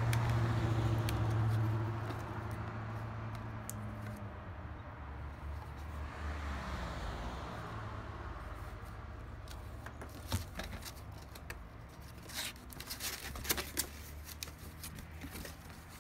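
A low, steady hum fades out over the first few seconds. After that come scattered clicks, taps and rustles as the unpowered pump and its plastic intake strainer are handled.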